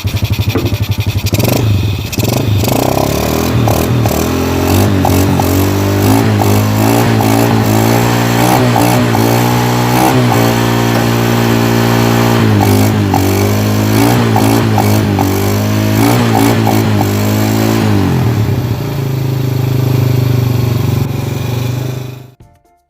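Yamaha Jupiter Z motorcycle engine, rebuilt with an oversize piston, running and being revved up and down repeatedly. It settles back to a steady idle and stops near the end.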